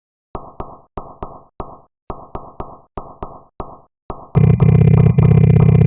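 Industrial electronic noise music. It opens with a clipped, stuttering rhythm of short synthesized hits, about three or four a second. About four seconds in, a much louder, bass-heavy distorted drone crashes in, and the pulsing goes on under it.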